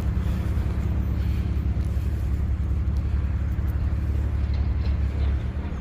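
Steady low engine rumble of slow-moving traffic on a snowy road, easing off near the end.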